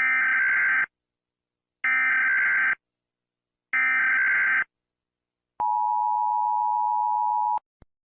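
Emergency Alert System signal: three bursts of screeching SAME digital header data, each just under a second, followed by a two-tone attention signal that holds for about two seconds and cuts off suddenly, with a faint click just after.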